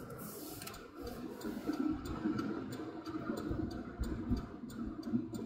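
Engine and road noise inside a moving pickup's cab, with a steady rapid ticking, about three ticks a second, starting about two seconds in.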